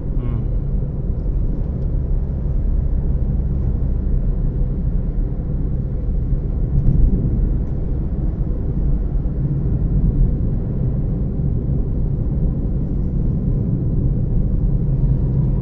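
Steady low rumble of a vehicle running, with engine and road noise.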